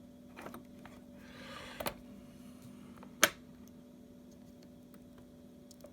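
Soldering a wire onto a circuit board: a brief soft hiss of flux sizzling under the iron about a second and a half in, small clicks of tools and wire being handled, and one sharp click a little after three seconds, over a steady low electrical hum.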